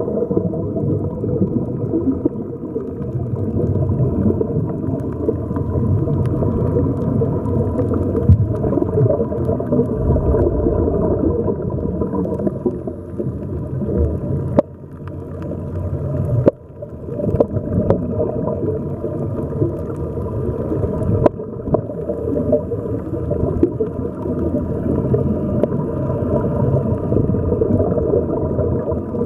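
Muffled underwater rumble and gurgling of water and air bubbles from the sea-walker helmets' air supply, heard underwater. The sound drops out briefly with a click twice near the middle.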